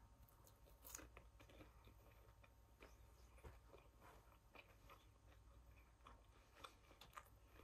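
Faint chewing of a mouthful of pretzel-crusted fried walleye, with soft, irregular crunches and mouth clicks.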